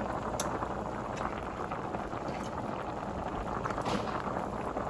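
A pot of water at a rolling boil with macaroni noodles cooking in it: steady bubbling with scattered small pops.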